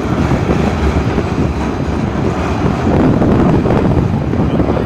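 Wind buffeting the microphone: a loud, low, fluctuating noise over the general noise of a city street.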